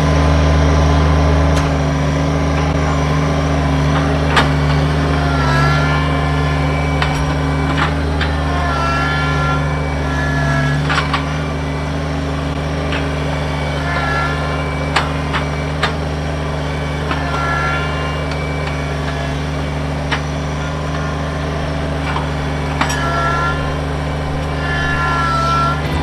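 Kubota BX23S compact tractor's three-cylinder diesel engine running steadily while its front loader works a trenching bucket into the ground to pry out a tree stump. Occasional sharp knocks and short high chirps sound now and then over the engine.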